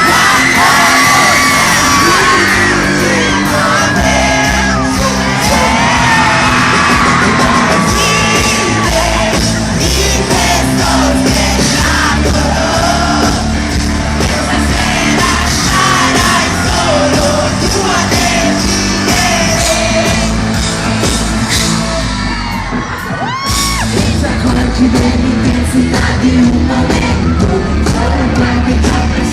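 Pop-rock band playing live with a lead singer, in a large indoor arena. About three-quarters of the way through, the music drops out for a moment, then the full band comes back in.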